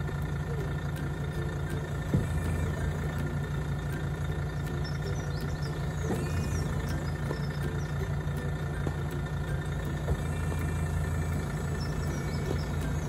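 Steady low mechanical hum of a Pilot motorhome's automatic hydraulic levelling system at work, deepening from about two seconds in until about eleven. Two short knocks come about two and ten seconds in.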